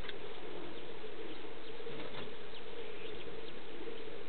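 A steady, slightly wavering buzzing hum, with faint scattered clicks over it.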